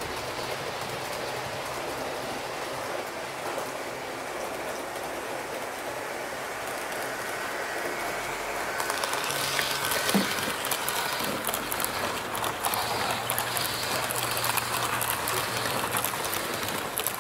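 Train running, a steady rush of rolling noise that turns brighter and crackly with many small clicks about halfway through.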